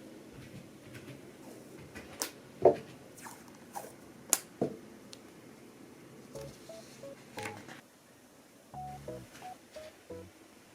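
A few sharp clicks and knocks of things being handled, then a run of short tones that step between different pitches, like electronic beeps.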